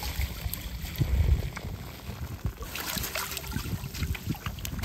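Seawater splashing and trickling around a mesh fish trap as it is dipped and shaken in the water, in irregular sloshes, with wind rumbling on the microphone.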